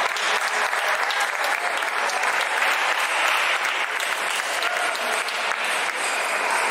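Dense, steady clatter of many table tennis balls striking tables and rackets across a busy multi-table hall, with a faint murmur of voices.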